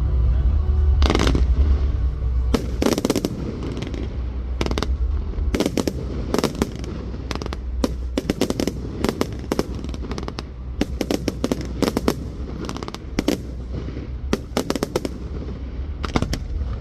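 Fireworks going off: a long run of sharp bangs and crackles, some single and some in quick clusters, over a steady low rumble.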